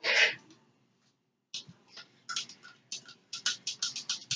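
A short hiss right at the start, then a metal or plastic spoon clicking and tapping irregularly against a plastic cup, about three or four taps a second, as borax solution is stirred into a glue mixture for slime.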